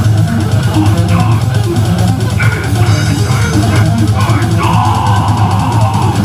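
Live death metal band playing loud: distorted electric guitars and bass over a drum kit, with the singer's vocals into the microphone.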